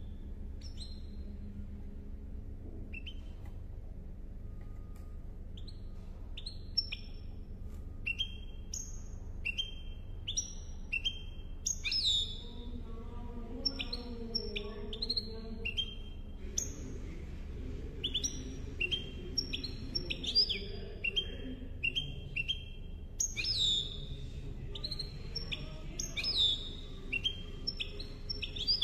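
Caged goldfinch × canary hybrid (mule) singing. Scattered single chirps come at first, then from about twelve seconds in a run of quick twittering notes, many sliding downward. A steady low hum runs underneath.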